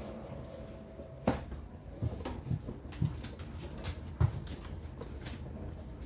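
Whirlpool WFO3P33DLXUK dishwasher running mid-cycle: a low hum with irregular knocks and short thuds from inside the machine. A steady tone stops with a sharp knock just over a second in.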